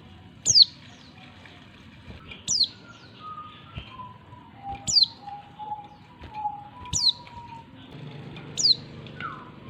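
Female oriental white-eye calling: a short, high note that sweeps steeply downward, given five times about two seconds apart. Fainter, lower whistled notes sound between the calls in the middle.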